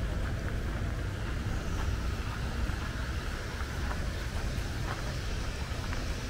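Steady low rumble of wind on the microphone outdoors, with a faint background hum and a few scattered faint ticks.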